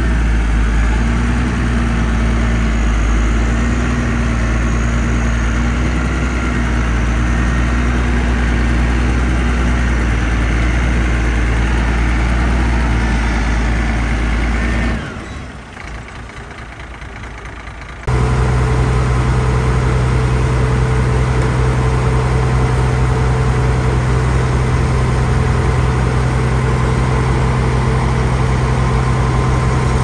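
Heavy diesel engines of earthmoving machines running steadily. About halfway through the sound drops away for some three seconds, then comes back abruptly with a different steady engine note.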